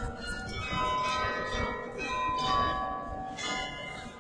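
The bells of the Rathaus-Glockenspiel, a clock carillon, playing a slow tune: single struck notes every half second or so, each one ringing on and overlapping the next.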